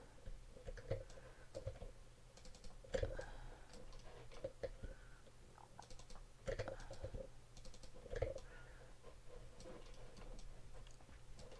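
Faint, scattered clicks of a computer mouse and keyboard, coming in small clusters, over a steady low hum.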